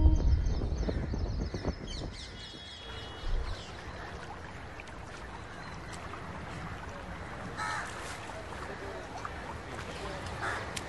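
A low rumble fades out over the first two seconds, leaving quiet outdoor ambience with an even hiss of running water and birds calling: a run of chirps a couple of seconds in, and short harsher calls about two-thirds through and again near the end.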